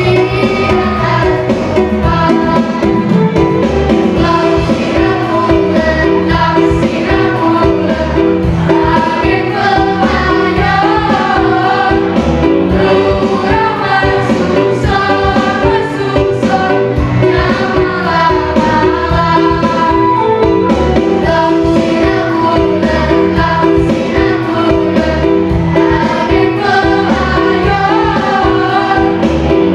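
A group of children singing an Acehnese song in unison over instrumental accompaniment.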